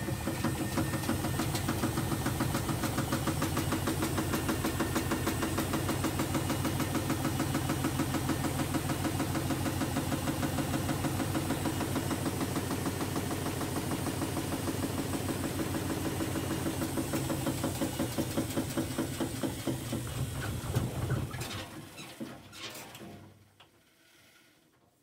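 A machine running steadily with a fast, even pulse, then winding down and stopping about 22 seconds in.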